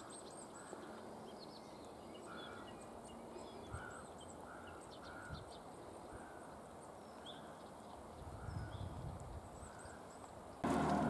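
Faint birdsong: scattered high chirps and trills, with one bird repeating a short call about once a second. Just before the end a sudden, much louder noise cuts in.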